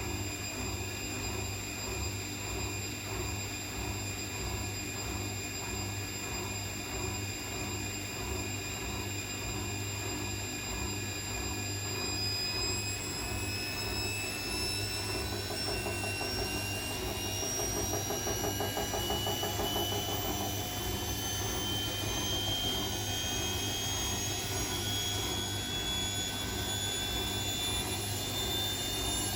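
Bosch WAE24366 washing machine on a spin cycle: the motor's whine slowly rises in pitch as the drum speeds up, over a steady hum with a regular pulsing from the turning drum. The noise comes from a broken drum spider rather than worn bearings.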